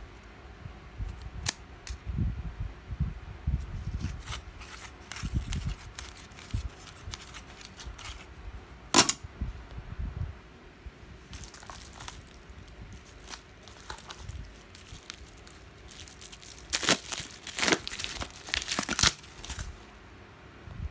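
Hands handling bare printed circuit boards and their plastic packaging: irregular crinkling and rustling with sharp clicks of the boards. There is one loud click about nine seconds in and a burst of loud crinkling near the end.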